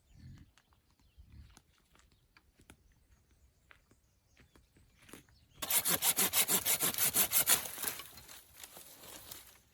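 Hand saw cutting through wood in quick, even back-and-forth strokes, about five a second, starting a little past halfway and lasting a couple of seconds, with a few faint knocks before it.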